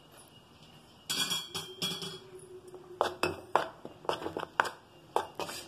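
Water poured into gram flour about a second in, then a metal spoon stirring the batter in a plastic bowl, clicking and scraping against the bowl in quick, irregular knocks.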